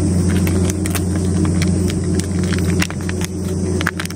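A cat eating wet food from a metal bowl close to the microphone: quick, irregular wet clicks of chewing and lapping, over a steady low engine hum.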